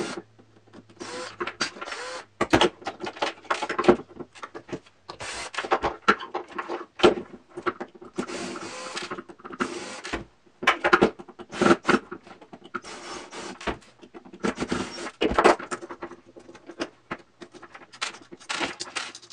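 Small cordless screwdriver whirring in repeated short bursts as it backs out screws from a fan motor's housing. Metal parts clink between the bursts.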